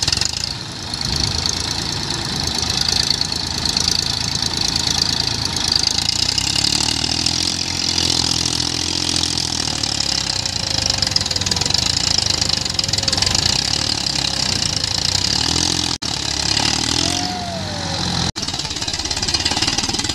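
Massey Ferguson 1035 DI tractor's diesel engine working hard under load, its pitch rising and falling as it drags a trailer heaped with soil through deep mud.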